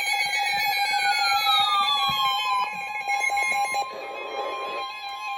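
Emergency Alert System attention signal announcing a flash flood warning: steady electronic alarm tones, with a second tone gliding downward over the first two and a half seconds and a short burst of noise about four seconds in.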